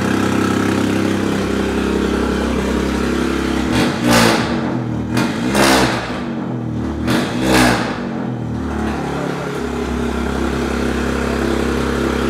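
Volkswagen Polo with a decat and catback exhaust idling, then blipped about four times in quick succession in the middle before settling back to idle. The exhaust has an unusual thumping note that is likened to a Royal Enfield Bullet motorcycle.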